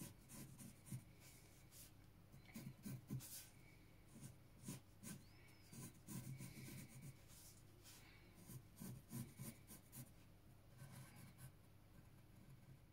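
Faint scratching of a pencil drawing short straight lines on paper, in scattered strokes.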